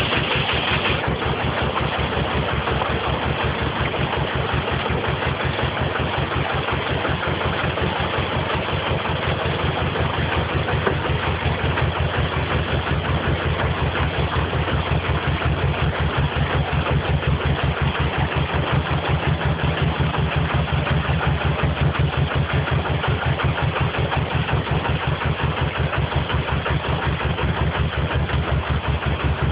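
Narrowboat engine running slowly with a steady, even beat.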